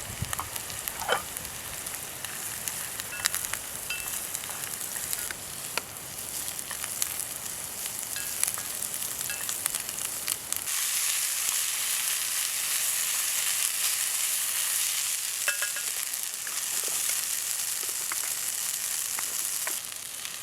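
Food sizzling in a skillet over a campfire: a steady frying hiss with a few light clicks, growing louder about halfway through.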